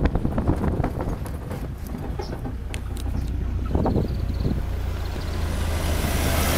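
Inside a vehicle driving on a rough dirt road: a steady low engine drone with frequent knocks and rattles from bumps, then a rising rush of noise near the end as an oncoming pickup truck passes close by.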